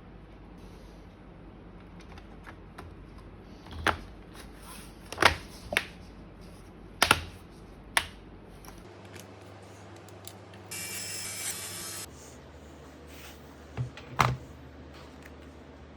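Laptop parts being handled during a memory upgrade: a scattering of sharp plastic clicks and snaps, with a steady whirring noise lasting about a second just past the middle.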